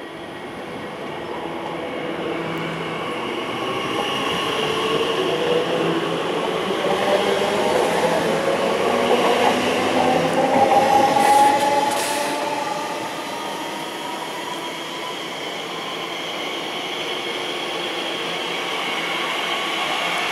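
Class 345 Aventra electric train pulling away from the platform, its traction motors giving a whine that rises in pitch as it accelerates, over the rumble of wheels on rail. The sound grows louder to a peak about two-thirds of the way through, then settles to a steadier run.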